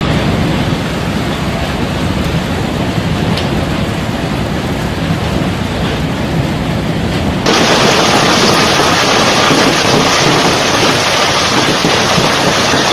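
Hail and heavy rain pelting the ground in a steady, loud hiss, with a low rumble underneath. About seven and a half seconds in it switches abruptly to a brighter, harsher hiss.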